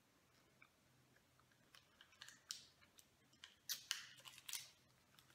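Faint mouth sounds of a small hard candy being sucked and crunched between the teeth. Scattered sharp crackles and clicks come in the second half and are loudest about four seconds in.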